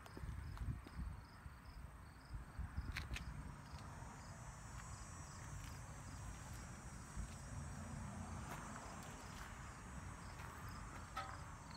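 Insects chirping in a rapid, regular pulse, about three chirps a second, over a low rumble.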